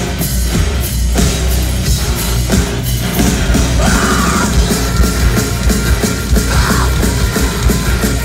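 Loud live heavy rock music from a band: electric guitar and drums, with a couple of brief shouts about four and six and a half seconds in.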